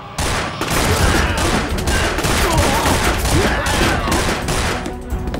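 Heavy gunfire: a dense, rapid volley of many shots breaking in suddenly just after the start and running on, easing slightly near the end.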